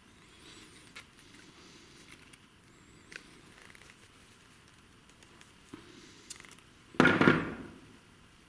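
Needle-nose pliers and braided nylon starter cord handled on a wooden workbench: faint rustling and a few small clicks, then a single loud clatter about seven seconds in that dies away within half a second, the pliers being put down on the bench.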